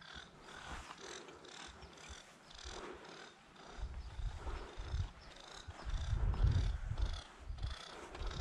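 Walking footsteps on a dry dirt dike, about three a second. From about four seconds in, gusts of wind buffet the microphone with a low rumble that becomes the loudest sound.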